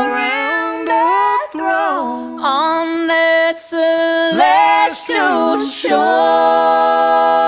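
Background music: unaccompanied gospel singing, several voices in harmony with long held notes, one long held note near the end.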